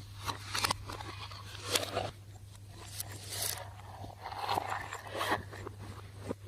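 Slime being kneaded and squished by hand, giving irregular sticky clicks and crackles.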